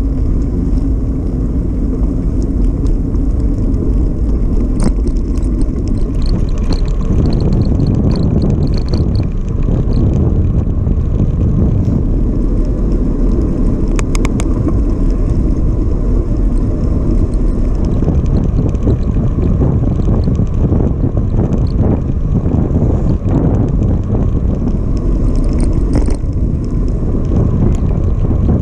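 Wind buffeting the microphone of a camera on a moving bicycle, mixed with the rumble of the tyres on a tarmac path. A brief clatter of sharp clicks comes about halfway through.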